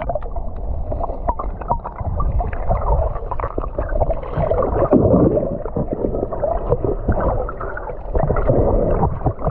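Muffled water sloshing and gurgling heard with the microphone under water while snorkeling: a steady low rumble with many small clicks and pops, the higher sounds cut off sharply as the camera goes under.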